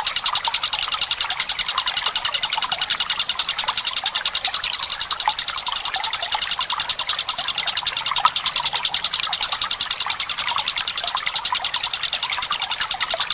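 Tengkek buto bird singing a long, rapid, evenly pulsed trill without a break, over trickling water.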